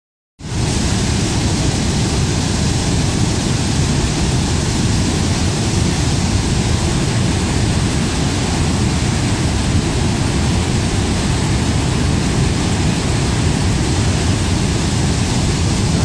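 Floodwater pouring over a lake spillway at high flow: a steady, loud rush of falling, churning water.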